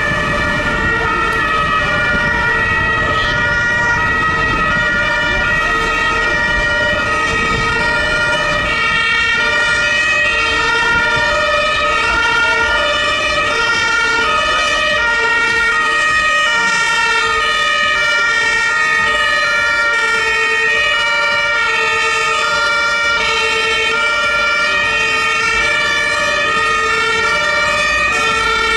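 German fire-engine two-tone sirens (Martinshorn) sounding continuously, their high and low notes alternating in a steady rhythm, with more than one siren overlapping. Low traffic rumble runs underneath.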